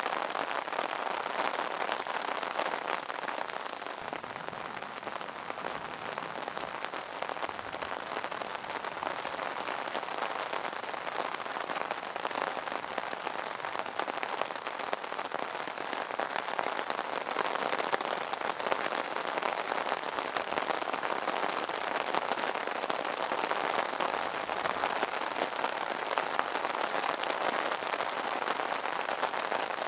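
Steady rain pattering on an umbrella canopy, a dense even patter of drops.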